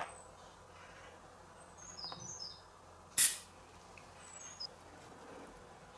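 Quiet handling of a copper wire coil and a can on a tabletop: a small click at the start and a short, sharp burst of noise a little past three seconds in. Faint high chirps come twice, around two seconds and again near four and a half seconds.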